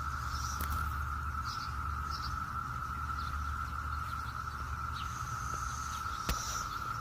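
Brood X periodical cicadas chorusing in one steady, unbroken drone, with birds chirping over it. A single sharp click comes about six seconds in.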